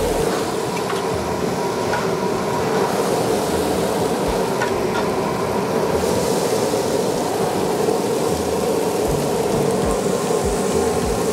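Quesabirrias sizzling on a flat-top griddle, over a steady mechanical drone.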